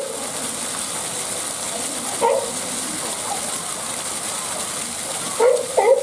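Water gushing steadily into a pool, with California sea lions barking over it: one short bark about two seconds in and a quick run of barks near the end.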